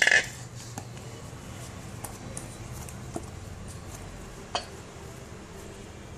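A sharp clatter right at the start, then hands squeezing and handling soft rice-flour dough in a steel bowl, with a few faint clicks against the bowl over a steady low background hum.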